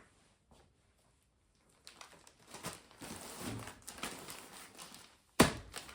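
Packaging rustling and crinkling as household items are handled, with one sharp knock a little over five seconds in as something is set down.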